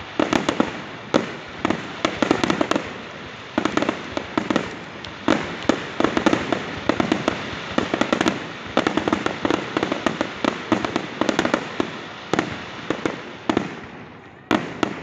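Fireworks display: shells bursting in rapid clusters of sharp bangs with crackling between them, thinning out near the end.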